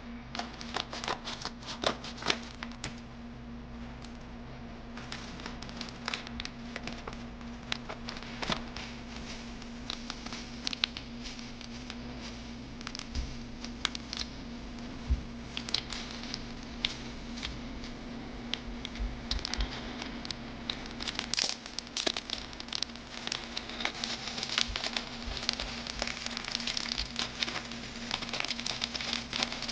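Trading card pack wrappers crinkling and tearing open while cards are handled: an irregular run of crackles and rustles that gets busier about two-thirds of the way through. A steady low hum sits underneath.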